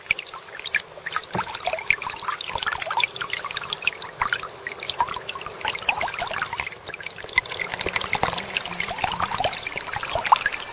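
Water splashing and trickling close to the microphone around a kayak moving through the sea: a dense, irregular run of small splashes and drips.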